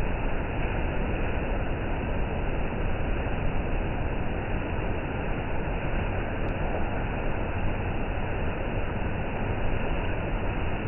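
Monsoon rain falling steadily in gusty wind: a constant hiss with a low rumble underneath.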